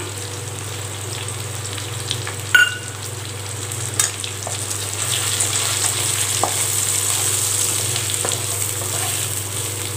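Brinjal, shallots and garlic sizzling steadily in oil in a kadai, growing a little louder midway as a wooden spatula stirs the freshly added coriander and chilli powder through. Two short knocks, a couple of seconds apart, come from the spatula against the pan.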